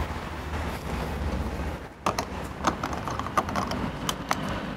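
Low steady hum of a car engine at a petrol pump for about two seconds, then a run of light clicks and knocks.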